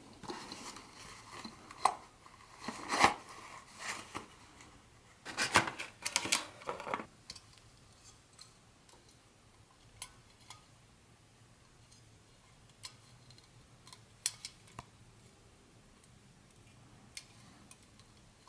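Hands handling and unpacking small model train items: close, busy handling noise with clicks and light clatter for about the first seven seconds, then a few scattered single clicks and taps.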